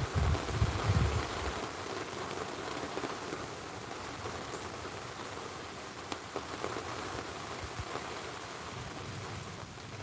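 Steady rain falling, an even hiss, with a low rumble that fades away in the first second and a half.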